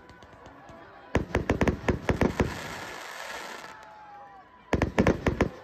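Aerial fireworks bursting: a rapid string of sharp bangs about a second in, followed by a fizzing crackle of sparks, then a second quick cluster of bangs near the end.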